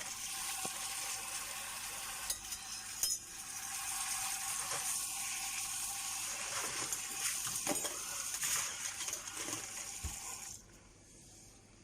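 Tap water running over metal spoons being rinsed, the spoons clinking against each other a few times; the water shuts off near the end.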